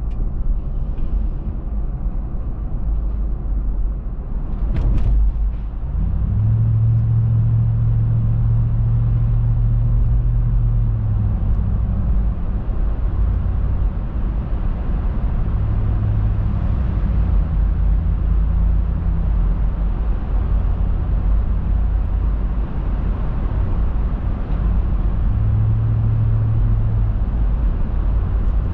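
Steady low road and engine rumble heard from inside a car driving through a road tunnel. A brief knock comes about five seconds in, and soon after a deeper drone sets in and swells and fades a few times.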